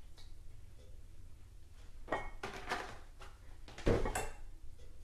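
Kitchen items handled on the counter: a few light knocks and clatters about two to three seconds in, then a heavier thump near four seconds as the milk jug is set down.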